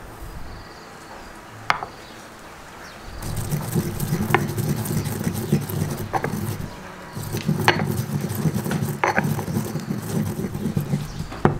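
Granite pestle crushing and grinding fennel seeds in a granite mortar: a gritty scraping and crunching that starts about three seconds in, with a sharp stone-on-stone knock every second or two. Before that, one single tap.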